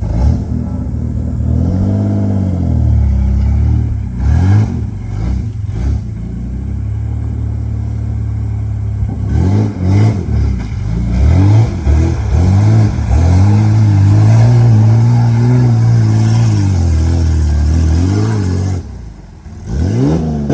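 Straight-piped RB30 inline-six engine in a Nissan Patrol revving hard, again and again, its pitch rising and falling through several rev cycles with a brief drop near the end.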